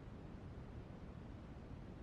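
Continuous white noise: a steady, even rush with no peaks or breaks, heavier in the low end.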